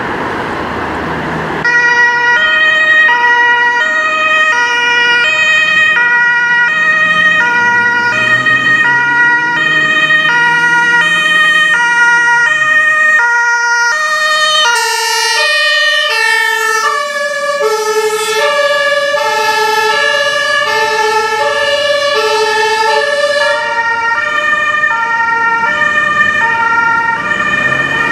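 Max B. Martin 2297GM compressed-air two-tone horn on a Mercedes-Benz Sprinter baby intensive-care ambulance, sounding the alternating high-low German emergency signal. It starts about two seconds in, and its pitch drops about halfway through as the vehicle passes, with the van's engine and traffic noise underneath.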